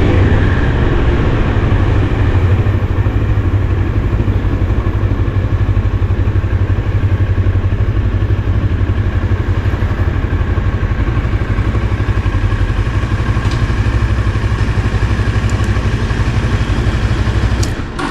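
GR400 motorcycle running steadily, its engine sound heavy in the low end. The sound drops off sharply near the end.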